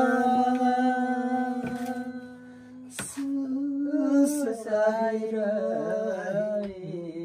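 A man's voice singing one long held note, then humming a wavering, shifting line after a sharp click about three seconds in.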